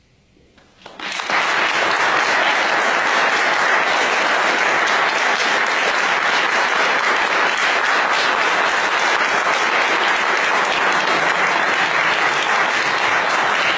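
Audience applauding. The clapping starts about a second in after a moment of near quiet, then keeps on loud and steady.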